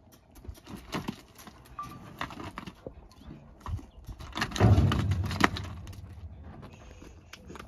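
Scattered knocks and scuffs, with a louder burst of thumps and clatter about halfway through: a young filly's hooves striking and scrambling on a stock trailer as she resists being loaded.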